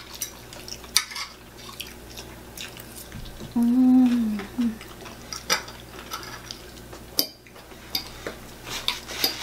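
Fork and knife clicking and scraping against a plate while fried chicken is cut. About three and a half seconds in, a short hummed voice sound, falling in pitch, is the loudest thing heard.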